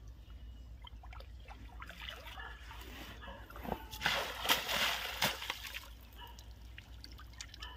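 Water splashing and sloshing in shallow, muddy water, with scattered wet crackles, loudest about four to five and a half seconds in.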